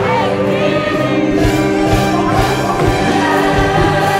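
A large concert audience singing along together with a live orchestra, over a steady drum beat, in an Arabic ballad.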